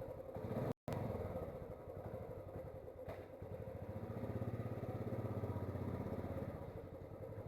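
Royal Enfield Classic 350's single-cylinder engine running with a steady low, rhythmic thump. It cuts out briefly just under a second in and grows a little louder from about four seconds in.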